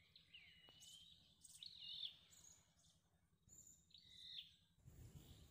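A bird calling faintly, a short high looping phrase repeated three times about two seconds apart, over faint low background noise.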